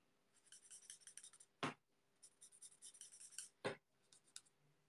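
Stampin' Blends alcohol marker scratching faintly over paper in quick back-and-forth colouring strokes, in short runs. Two short sharp clicks stand out, about two seconds apart.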